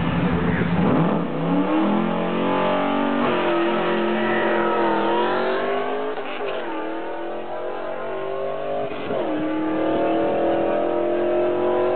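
Camshaft-upgraded LS1 5.7-litre V8 in a Pontiac Trans Am, through a Borla exhaust, holding steady revs for about a second and then launching hard. Its pitch climbs through the gears of the six-speed manual, with three upshifts roughly three seconds apart, the last about three-quarters of the way through.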